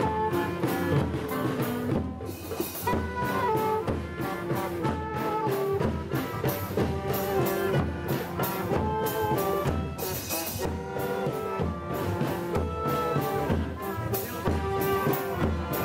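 Marching street brass band playing: saxophones and trombones carrying the tune over a steady bass-drum beat.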